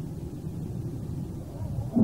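Steam locomotive working: a steady low rumble, with one sharp exhaust beat right at the end.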